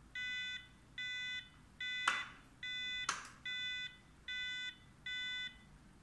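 Power wheelchair joystick controller beeping: seven evenly spaced warning beeps, about one every 0.8 seconds, with two sharp clicks about two and three seconds in. The chair will not drive, and the beeping is a warning that he suspects comes from the chair being switched to manual (freewheel) mode.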